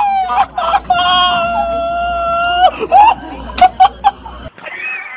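A rooster crowing: a few short notes, then one long held crow that breaks off abruptly and falls away, followed by a few sharp clicks.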